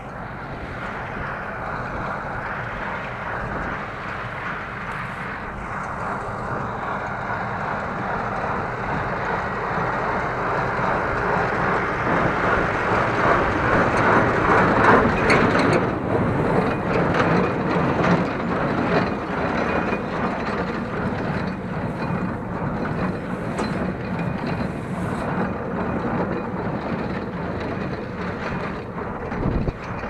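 Massey Ferguson 6150 tractor and Welger AP53 conventional small-square baler running in work: a steady mechanical din of the baler's workings and the tractor engine, growing louder towards the middle.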